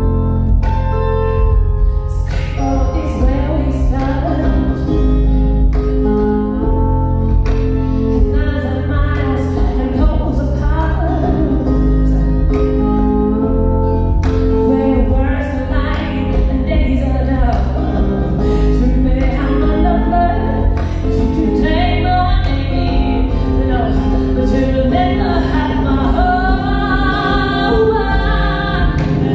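A woman singing live while accompanying herself on a plucked electric kantele, over a continuous deep bass. The voice grows stronger in the second half.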